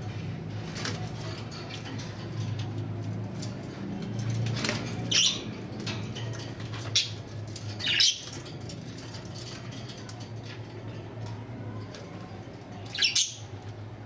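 Budgerigars fluttering and flapping their wings in a wire cage. Four short, sharp, high sounds stand out over a steady low hum.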